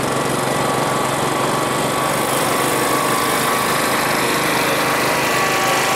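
Steady engine drone with several constant whining tones over a broad noise, holding an even level without rising or falling.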